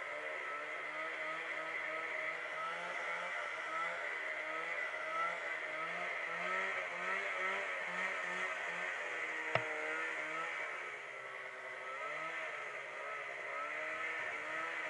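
Snowmobile engine running as the sled travels, its pitch wavering up and down with the throttle. A single sharp knock sounds just under ten seconds in.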